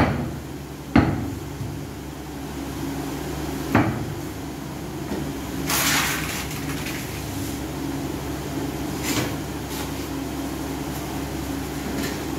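Tiling work on a ceramic floor: two single knocks, about a second in and about four seconds in, and a rough scrape around six seconds in, over a steady low hum.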